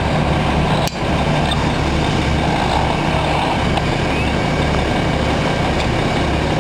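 Fire truck's diesel engine running steadily, with a brief click about a second in.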